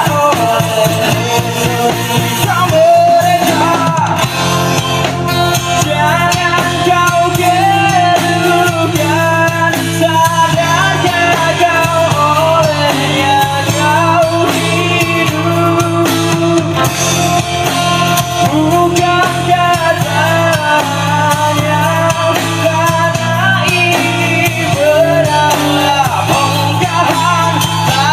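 Rock band playing a song with a singer, guitar, bass and drum kit.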